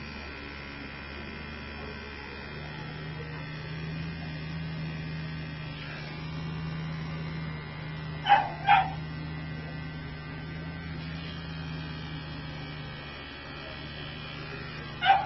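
Cordless dog clipper with a #40 blade running with a steady hum while clipping a dog's underside. A dog barks twice in quick succession about eight seconds in, and once more at the very end.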